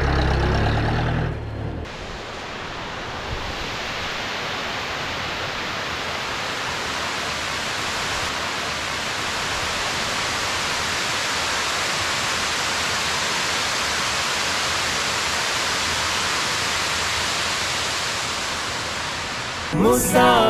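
A vehicle's low engine rumble for the first two seconds, then a steady, even rushing hiss with no rhythm or pitch, fading in over a couple of seconds and holding level.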